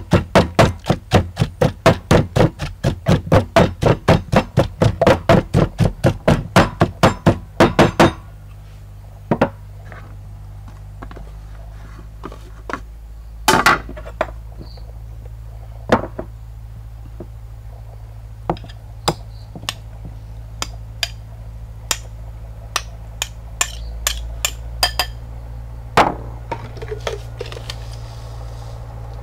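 Wooden pestle pounding in a wooden mortar, about three even strokes a second, stopping about eight seconds in. After that only scattered light clicks and taps, with a spoon clinking against glass jars.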